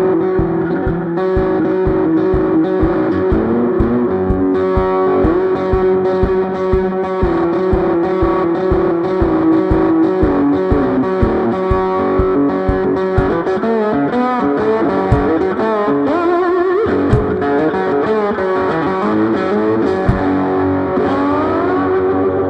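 Handmade banjo-style instrument with a metal can body, played amplified with some distortion in a Delta-blues style: a held drone string under picked notes, with sliding notes in the second half. A steady low thump keeps a beat of about two to three per second.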